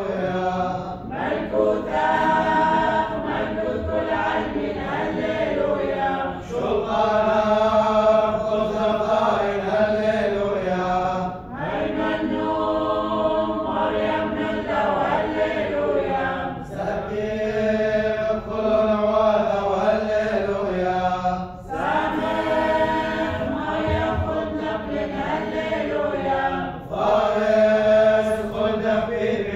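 Liturgical chant of the Assyrian Church of the East Mass, sung by a group of voices in phrases of about five seconds each with brief breaths between.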